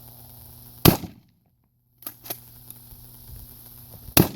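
Two 12-gauge shotgun shots about three seconds apart, each a sharp loud report, with a few quieter clicks between them.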